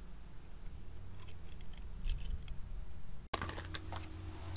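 Faint scraping and small clicks of a steel scribe picking at the threads of the pilot-jet bore in a Briggs & Stratton Flo-Jet carburetor body, clearing out the white corrosion that has seized the jet. A low background rumble runs underneath, and a single sharp click of tool handling comes near the end.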